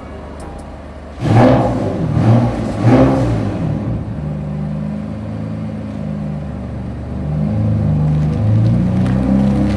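BMW M4's twin-turbo straight-six revved in three quick blips about a second in, then settling to a steady idle that grows a little louder near the end.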